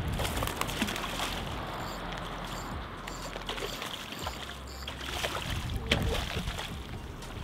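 Water sloshing and splashing as a small hooked snook is played at the surface beside a dock, with scattered light clicks and a low steady rumble underneath.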